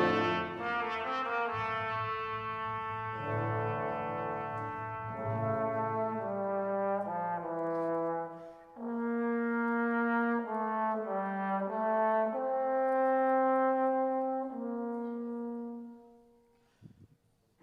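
Slow brass music: several instruments holding notes together in chords that change every second or two, with a short break about eight seconds in, then dying away near the end.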